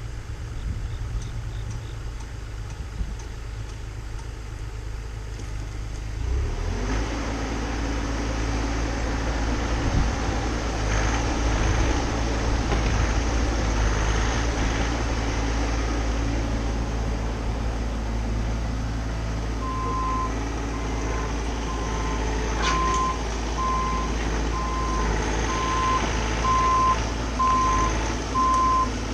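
Bobcat mini-excavator's diesel engine running, growing louder about six seconds in as the machine works. From about two-thirds of the way through, a backup alarm beeps steadily about once a second.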